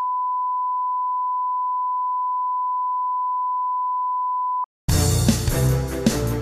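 Broadcast line-up test tone played with colour bars: one steady pitch that cuts off about four and a half seconds in. After a moment's gap, music starts.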